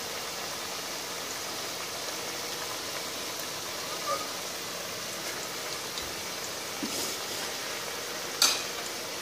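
Potato strips deep-frying in hot oil, a steady sizzle, with one sharp click near the end.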